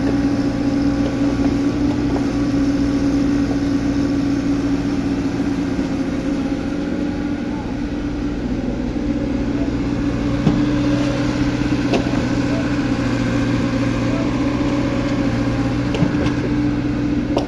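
Excavator's diesel engine running steadily at an even pitch, with a few short knocks from the working machine scattered through.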